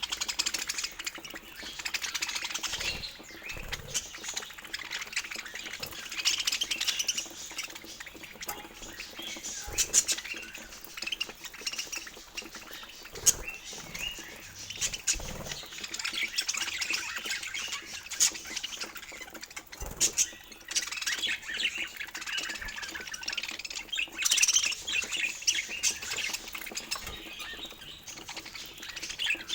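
Budgie chatter: continual warbling chirps and squawks, with occasional sharp clicks.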